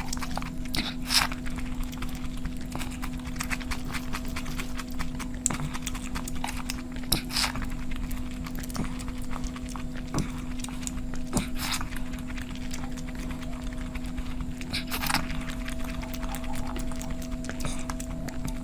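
Close-miked eating: a person chewing and smacking their lips, a stream of irregular wet clicks with a few louder smacks, over a steady electrical hum.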